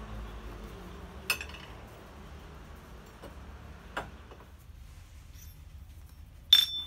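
Steel hammers hung on a forged steel hammer rack, knocking against the rack twice with short clanks. Near the end a piece of steel is set down on an anvil with a sharp, ringing clink, the loudest sound.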